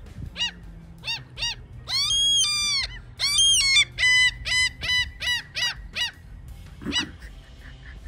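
Common gulls calling: a string of high, ringing calls, with two longer drawn-out calls about two and three and a half seconds in, then a quick run of short calls, about three a second, and one last call near the end.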